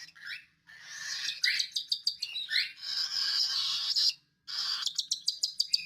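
Baby cockatiels giving raspy, hissing begging calls during hand-feeding. Fast runs of ticks come about one and a half seconds in and again near the end, and there is a short break a little after four seconds.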